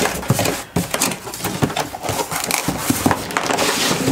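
Cardboard box being opened by hand, its top half scraping and sliding up off the bottom half: cardboard rustling and rubbing with many irregular light knocks.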